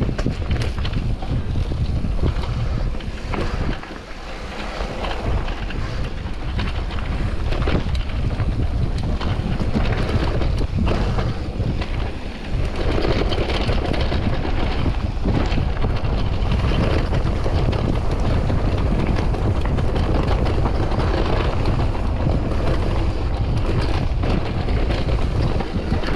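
Mountain bike descending a trail at speed: wind buffeting the microphone over a steady rumble of the ride, with scattered short knocks and rattles from the bike over rough ground.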